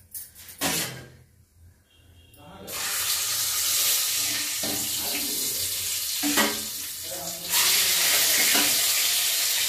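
Steady hiss from a pot of hot water on a lit gas burner, starting about three seconds in and getting louder near the end, with a few short clinks of a steel ladle.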